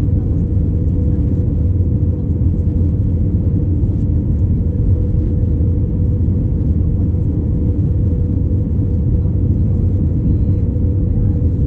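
Steady cabin noise of an Airbus A319-111 in flight, heard inside the cabin at a window seat: the deep rumble of its CFM56 turbofan engines and airflow over the fuselage, with a steady mid-pitched hum running through it.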